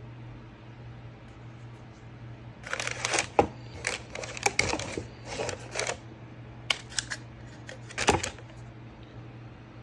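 Crumpled kraft packing paper rustling and a hard plastic hatchet sheath clicking and knocking as it is handled in a cardboard box. The rustles and clicks come in bursts for about three seconds, with a sharp click among them, then a few more near the end.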